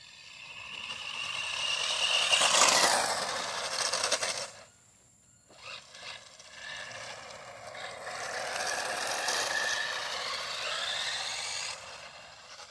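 Tyco Twin Turbo Lamborghini RC car running its stock motors on a 3S LiPo: a high electric motor whine over the rush of tyres on concrete. It builds to a loud close pass about two and a half seconds in, cuts out for about a second midway, then runs again with the whine rising near the end before it fades.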